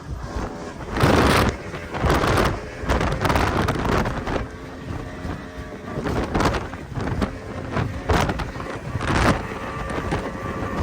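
Race boat engine running steadily at speed, with wind buffeting the microphone in loud irregular gusts every second or two.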